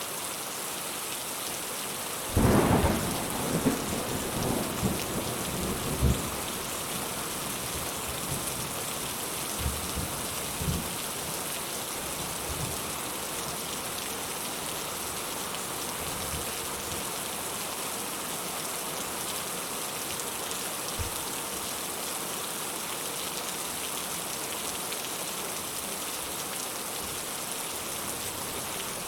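Steady heavy rain with a thunderclap about two seconds in, rolling off in rumbles over the next several seconds, and a faint distant rumble later on.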